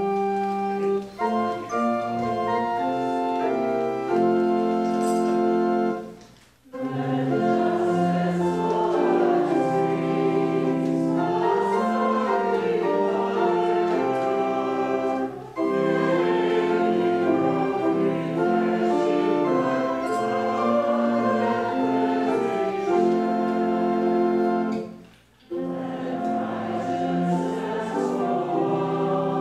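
Congregation singing the opening hymn with organ accompaniment: long held phrases broken by short pauses about every nine seconds.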